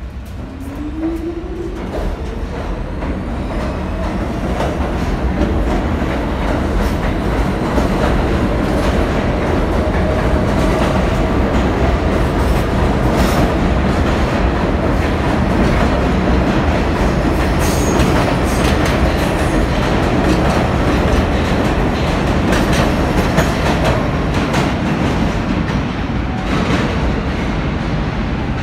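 New York City subway train pulling out of an underground station: a motor whine rises in pitch in the first couple of seconds as it accelerates. It then becomes a loud, steady rumble with rapid wheel clicks over the rail joints as the cars pass.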